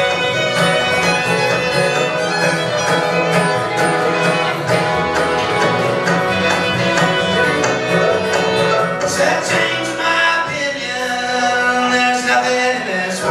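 Acoustic string band playing an instrumental break of a bluegrass-style song: a fiddle bowing the lead over strummed guitar, mandolin and bass. The playing thins out a little about two-thirds of the way through.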